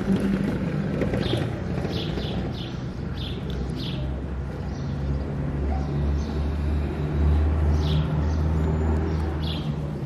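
A steady low engine hum, growing louder about halfway through, with short bird chirps about every half second in the first few seconds and a few more near the end.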